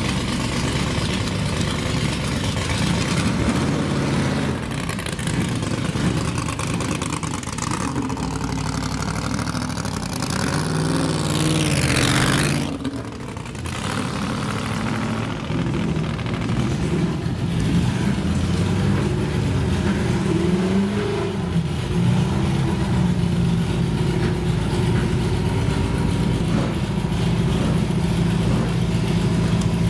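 Vintage racing car engines running, with a steady burble throughout. About twelve seconds in, one engine climbs sharply in pitch to a peak, then drops off suddenly and the burble carries on.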